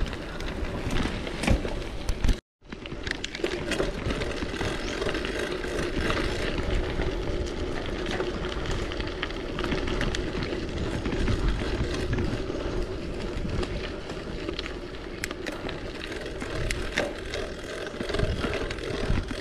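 A bicycle rolling over a rough dirt trail, with steady tyre and rolling noise and frequent rattles and clicks from the bike. The sound drops out completely for a moment about two and a half seconds in.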